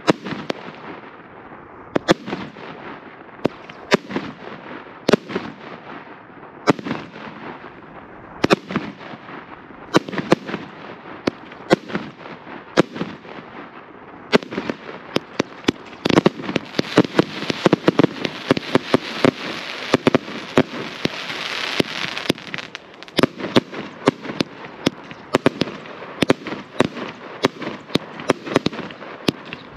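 A chain of consumer firework cakes, fused together as one 50,000-gram compound cake, firing shot after shot: sharp bangs of launches and aerial bursts, about one or two a second at first. In the middle the shots come thicker, over a steady hiss, then sharp bangs go on to the end.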